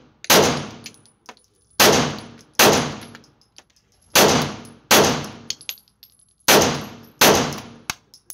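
Seven shots from a Smith & Wesson M&P Shield Plus 9mm micro-compact pistol firing 115-grain target ammunition, mostly in quick pairs under a second apart with a pause of about a second and a half between pairs, each shot echoing in the indoor range. Light metallic clinks of ejected brass casings hitting the floor come between the shots.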